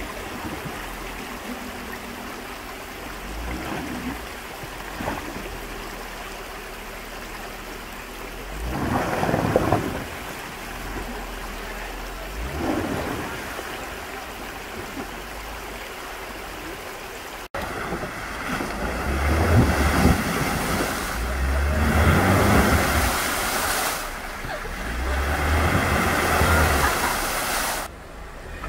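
Jeep Wrangler crawling through a shallow rocky stream: its engine running while water sloshes and splashes around the tyres, swelling twice. After a sudden cut about two-thirds through, the sound gets louder, with heavier engine rumble and splashing.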